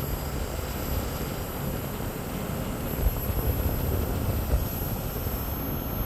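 Cooper & Hunter mini-split outdoor unit running with both condenser fans turning: a steady running noise. The fans run again because the faulty fan control board behind the F5 error has been replaced.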